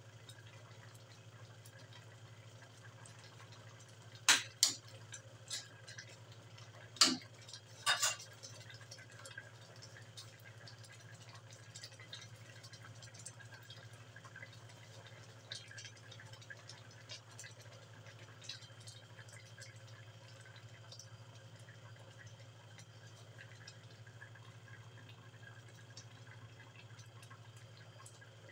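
Coconut-milk stew simmering in an aluminium wok, faint bubbling and popping over a steady low hum. A handful of sharp metallic clinks, a ladle knocking against the wok, come between about four and eight seconds in.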